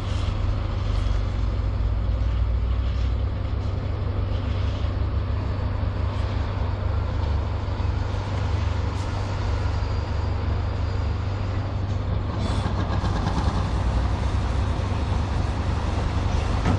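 Steady low engine rumble with an even rushing hiss over it, with no break or change in pace.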